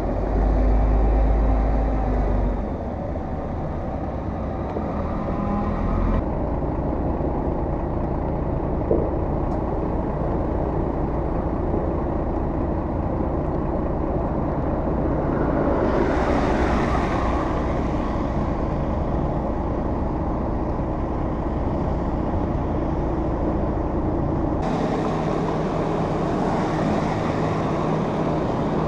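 Cars and trucks, among them a pickup with a snowplow blade, driving slowly along a slushy, snow-covered street: engines running and tyres hissing through slush. The tyre noise swells about two-thirds of the way through as a vehicle passes close, and the sound changes abruptly a few times.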